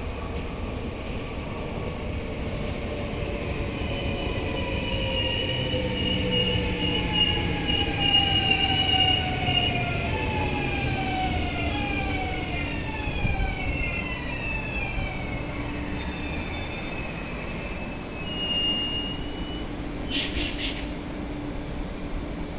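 NS VIRM double-deck electric multiple unit running in along the platform: several traction-motor whines slide down in pitch as it slows, over the rumble of its wheels on the rails. A brief high squeal comes near the end.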